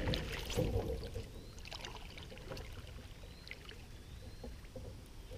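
Water lapping and trickling quietly against the hull of a small boat on a river, with scattered light clicks.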